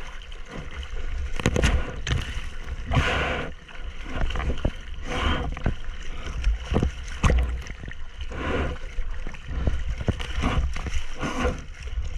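Sea water rushing and splashing over a surfboard's nose and around a camera at the water's surface as the board moves through breaking waves. A steady low rumble with repeated short splashes.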